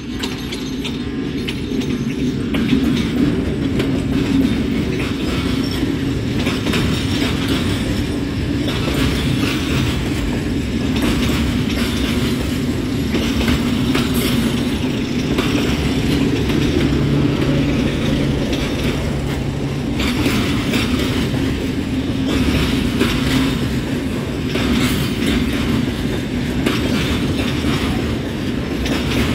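Two class 060-DA diesel-electric locomotives with Sulzer 12LDA28 engines pass close by, the second under power, with a steady engine drone. The loaded grain hopper wagons follow, their wheels clicking over the rail joints as they roll past.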